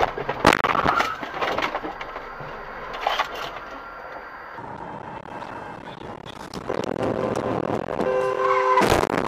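A car collision picked up by a dashcam microphone: a loud impact crash about half a second in, followed by knocks and rattling, with another bang around three seconds in. Near the end a steady held tone of several pitches sounds for about two seconds, with another sharp crack inside it.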